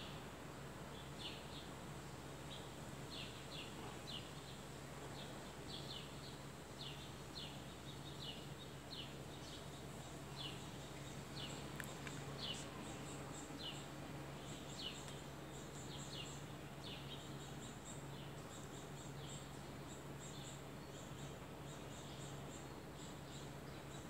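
Small songbirds chirping: a steady series of short, falling chirps about twice a second, joined about halfway through by clusters of higher, quicker chip notes, over a faint low steady hum.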